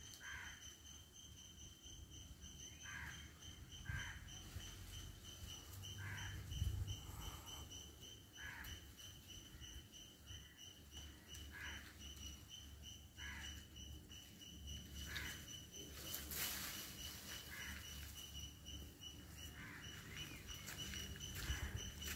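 A cricket trilling steadily, a rapid high pulsing that never stops. A short call from another animal repeats every second or two over it, and a low rumble runs underneath.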